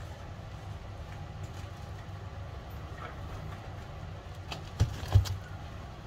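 Two sharp knocks close together about five seconds in, from a plastic-wrapped parcel being handled right next to the camera, over a steady low rumble.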